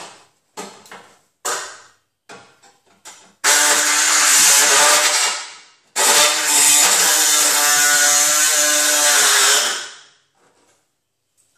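Power cutting tool cutting through the sheet steel of a car's radiator support. A few short blips come first, then two long cuts of several seconds each.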